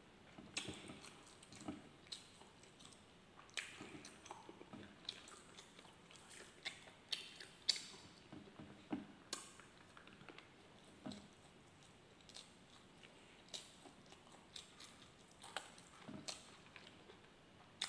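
A man chewing mouthfuls of roast pork and rice with his mouth, with irregular wet smacks and clicks, faint and close to the microphone.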